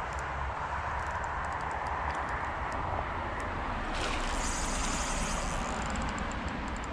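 A hooked small carp thrashing and splashing at the water's surface about four seconds in, lasting a couple of seconds, over a steady low background rumble.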